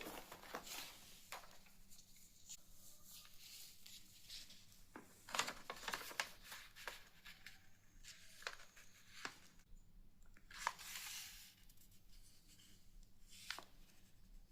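Faint paper folding by hand: irregular crinkles, rustles and sharp creasing sounds as a sheet of paper is folded and pressed flat, with a longer rustle about ten seconds in.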